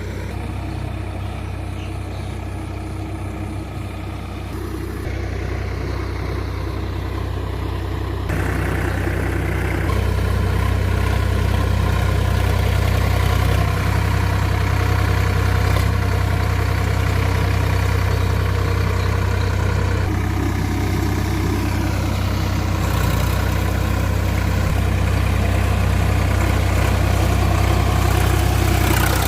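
Sonalika DI-47 RX tractor's diesel engine running steadily, growing louder about eight seconds in.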